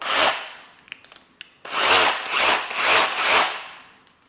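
Ridgid brushless 18-volt SDS rotary hammer drill run in short trigger pulls, with no load on the bit. One burst fades away at the start, a few light clicks follow, then four quick surges come about half a second apart.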